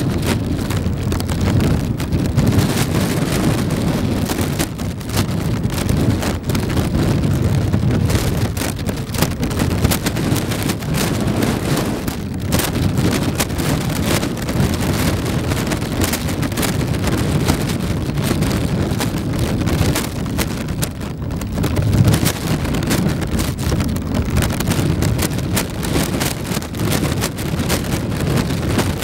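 Wind buffeting the microphone: a continuous low rumble that surges and dips, with crackle throughout.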